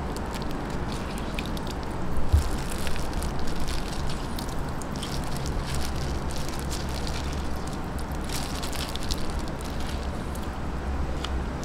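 Steady low background hum with an even hiss, a few faint scattered clicks and one soft low knock about two and a half seconds in.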